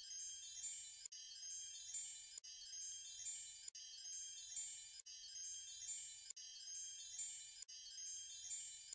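High tinkling chimes in a short loop that repeats about every second and a quarter, with a brief break between repeats.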